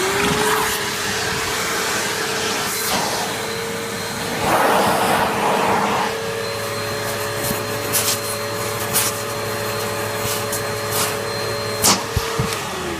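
Hoover vacuum cleaner motor switched on, whining up to speed, running steadily with a rush of airflow, then switched off and winding down near the end.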